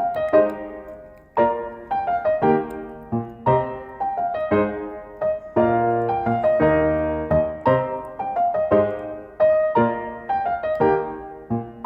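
Background piano music: a gentle melody of single struck notes and chords, each note ringing and fading before the next.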